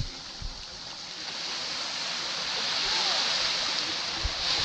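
Small waves washing onto a beach: a steady surf hiss that swells gently and builds again near the end, with a few soft low thumps.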